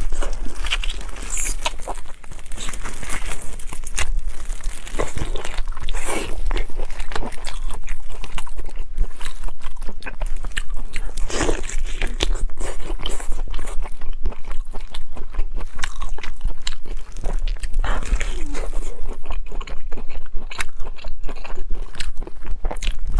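Close-up crunching and chewing of food: dense, irregular crisp bites and crackles as someone eats.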